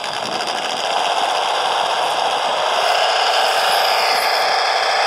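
PRC QX-4 1/18-scale RC rock crawler driving over rocks: its built-in engine-sound module plays a simulated truck engine over the whine of the electric motor and gears. The sound gets louder about a second in.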